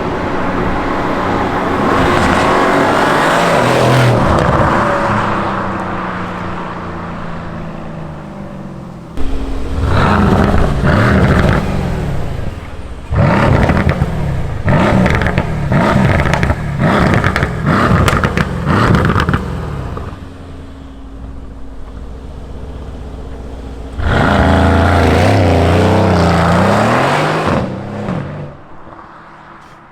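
Mercedes-Benz C63 AMG V8 running through its standard exhaust, revving up and falling off several times. From about nine seconds in, sharp pops and crackles sound through the revving: overrun misfires, which a software update has made more frequent and louder.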